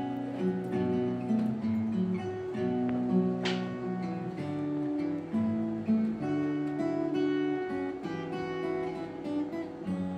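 Acoustic guitar playing an instrumental passage of chords, changing about once a second.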